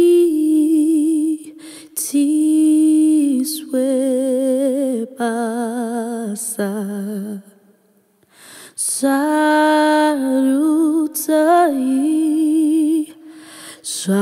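A woman singing a cappella through a WA-44 ribbon microphone with a Warm Lifter inline preamp. She holds notes with vibrato and sings melismatic runs in short phrases, with a pause of about a second just past halfway.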